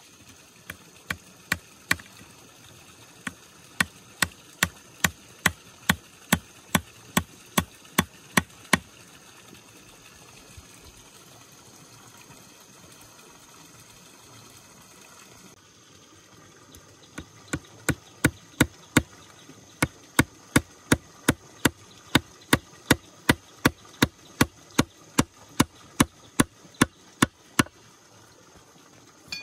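Rapid, evenly spaced strikes of a hand tool, a little over two a second, in two runs with a pause of several seconds between them.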